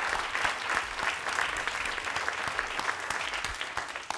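Audience applauding, dense clapping that begins to thin out near the end.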